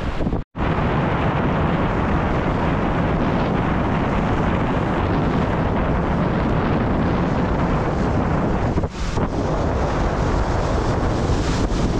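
Wind buffeting the microphone with surf washing behind it, a steady loud rush. It cuts out for an instant about half a second in.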